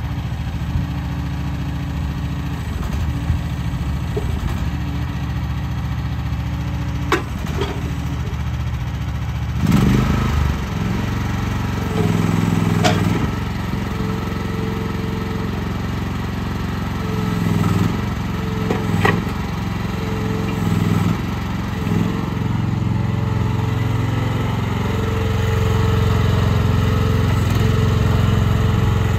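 AGT QH12 mini excavator's small engine running steadily, swelling and easing as the hydraulics work the boom, bucket and thumb and the machine travels on its rubber tracks. A few sharp metallic clanks come through along the way.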